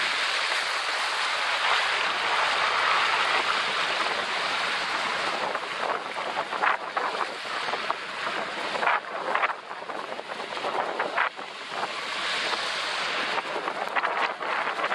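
Rushing noise of riding a motor scooter on a wet, flooded road: wind buffeting the camera microphone, mixed with the tyres hissing and swishing through water. Through the middle it turns patchier, with short crackles and brief dips.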